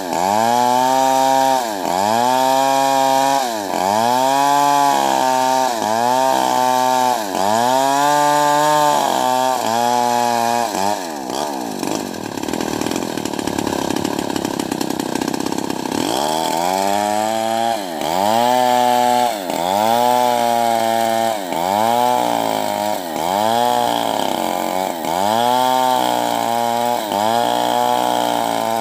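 Stihl 070 two-stroke chainsaw ripping lengthwise through a trembesi (rain tree) log, the engine note dipping and recovering about once a second as the chain bogs under load in the cut. For a few seconds midway the note turns rough and loses its pitch, then the rhythmic dips resume.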